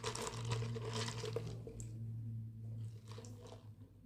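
Ice crunching and rattling in an iced latte, dense for the first second and a half and then thinning to a few faint clicks, over a steady low hum.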